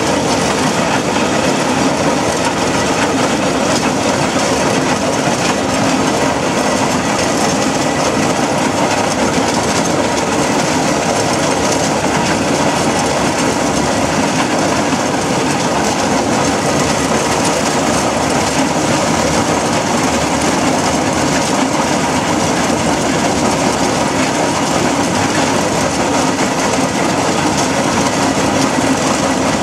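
Aveling and Porter steam road roller on the move along a road: a loud, steady running noise of the engine and its iron rolls on the road surface, heard from just behind it.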